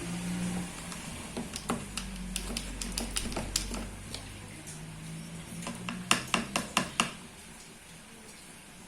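Spoon stirring slime in a container, knocking and scraping against the sides. Near the end comes a quick run of about six sharp clinks.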